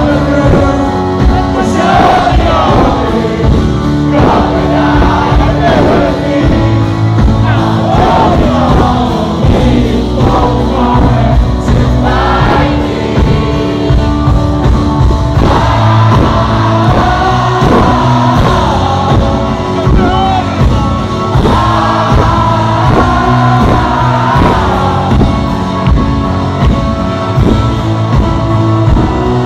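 A rock band playing live with a sung lead vocal over sustained guitar and keyboard chords and a steady beat.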